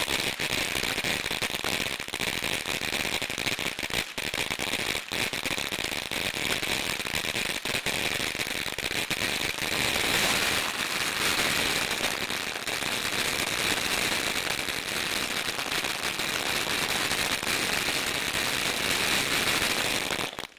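Brothers 'House on Fire' firework fountain burning: a steady hissing spray of sparks with dense crackling, getting a little louder about halfway through.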